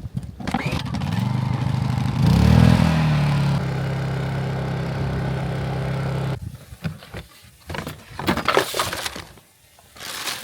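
An engine running with a steady hum, rising in pitch briefly about two seconds in, then holding steady until it cuts off abruptly about six seconds in. A few sharp knocks and clatter follow.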